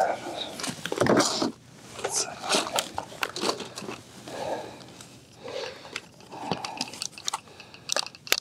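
Irregular crunching and clicking of ice-fishing gear being handled: a plastic pike tip-up with its reel lifted from a tackle box, with crusted snow and ice crunching under a kneeling angler.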